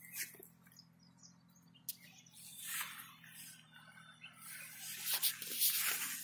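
Pigeon pea leaves and stems brushing and rustling against someone moving between the crop rows, in short swishes that grow more frequent near the end, with a faint steady low hum underneath.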